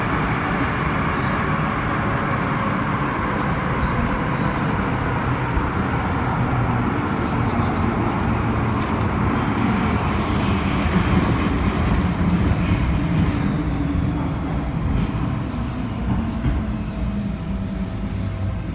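MTR Tseung Kwan O line M-Train running, heard from inside the carriage: a steady, loud rumble of wheels on rail and running gear, easing slightly near the end.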